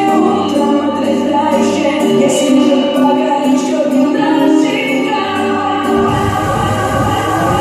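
Music with choir-like singing, held sustained notes over a steady accompaniment; about six seconds in the music changes and a heavy low part comes in.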